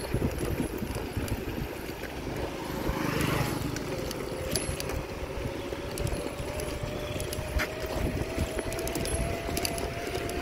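Wind buffeting the microphone and tyre rumble from a bicycle riding on a concrete road, under a thin steady whine that slowly rises in pitch. A brief louder rush about three seconds in.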